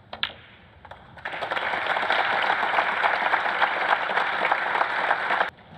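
A snooker cue strikes the cue ball with a sharp click. About a second later the arena audience breaks into applause for a century break, and the applause cuts off suddenly near the end.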